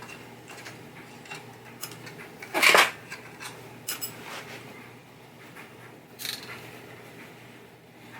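Scattered clicks and clinks of small hard parts as pinball pop bumper bases are worked loose from the playfield, with one louder clatter about two and a half seconds in.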